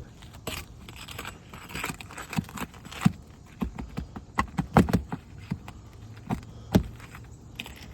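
Irregular metal clicks, taps and scraping of a pry bar working under an asphalt shingle to pull out a roofing nail.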